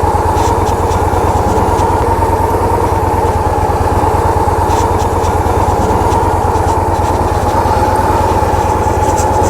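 Motorcycle V-twin engine running steadily with an even low pulse, no revving; the bike is the rider's 2010 Victory Vision.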